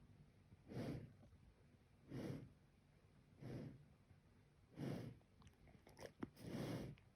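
Giant panda snoring in its sleep: faint, rhythmic noisy breaths a little more than a second apart, with a few small clicks near the end.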